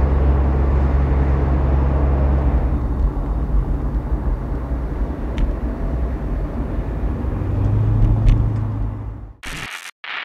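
Diesel engine of a 1975 Kenworth W900A semi tractor running as the truck drives by. It is a steady low drone whose note shifts about seven and a half seconds in, then cuts off suddenly near the end.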